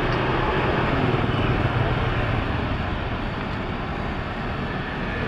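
Steady sizzle of skewered chicken sempol deep-frying in a pot of bubbling oil, over a low, steady rumble.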